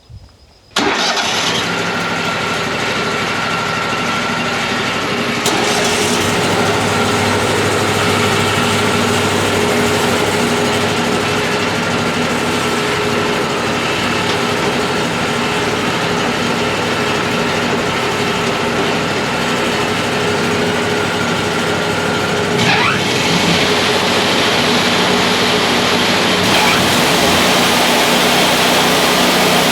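Wood-Mizer LT40 band sawmill's engine comes on suddenly about a second in and then runs steadily and loudly, its sound shifting twice as the mill works.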